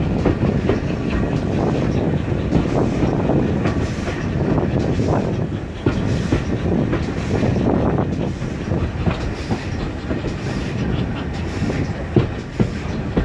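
Passenger train carriage running along the line, heard from an open window: a steady rumble with wheels clicking and clattering over the rail joints.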